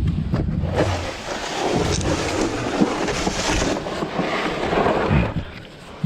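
Drain-cleaning machine running, its cable with a cutter turning and rattling inside a clogged drain line.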